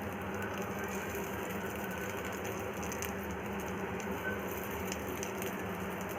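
Breadcrumbed vegetable cutlets shallow-frying in hot oil in a pan: a steady sizzle with fine crackles, over a low steady hum.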